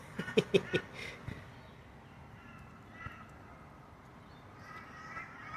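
Crows cawing in the background, with a few harsh calls about three seconds in and again near the end. A quick run of clicks and taps comes in the first second.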